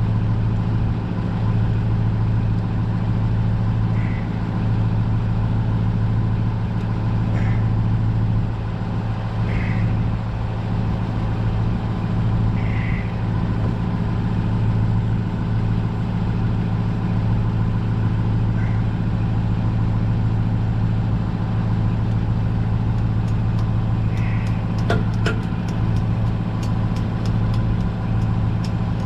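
Steady low hum of an engine or motor running at an even idle, with a few faint short squeaks and, near the end, a run of light clicks and a couple of taps.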